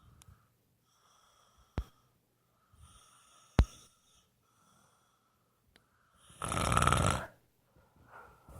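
Snoring: faint whistling breaths every couple of seconds, then one loud, longer snore about six and a half seconds in. Two sharp clicks sound at about two and three and a half seconds in.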